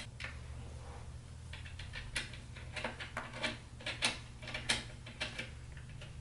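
Allen wrench turning screw bolts into a flat-pack table's panels: a string of light, irregular metal clicks and ticks.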